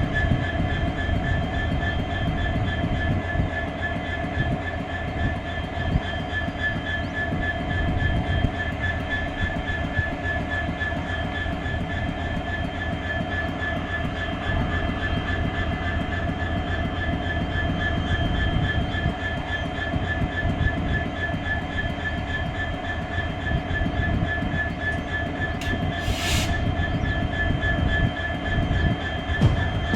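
Indian Railways WDG4 diesel locomotive's EMD 16-cylinder two-stroke engine idling, a steady hum and low rumble with a constant high whine over it. A brief hiss sounds near the end.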